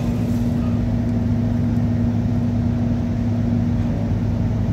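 City bus engine and drivetrain running, heard from inside the passenger cabin as a steady drone with a constant low hum. The uploader says it doesn't sound right and suspects an engine or gearbox problem.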